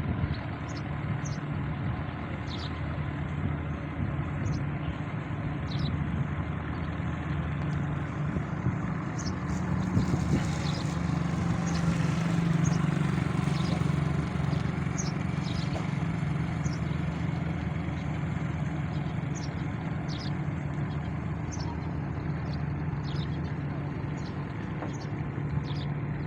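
Steady low hum of a large diesel engine idling, swelling a little about halfway through, with short high chirps scattered throughout.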